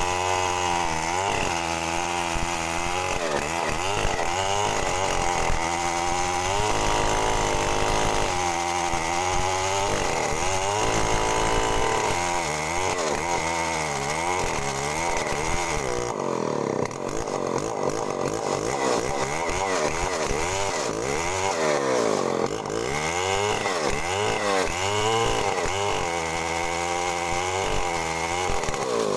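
Two-stroke chainsaw with CDI ignition running steadily; its engine pitch keeps dropping and climbing back every second or two.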